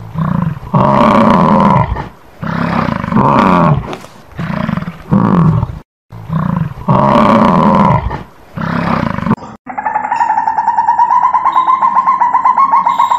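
American bison bellowing: a series of long, deep roaring calls one after another. About nine and a half seconds in they stop abruptly and a different steady, rapidly pulsing trill takes over.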